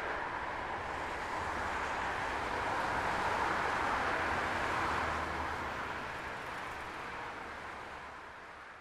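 Subway train running: a steady rush and rumble of car noise, fading out over the last few seconds.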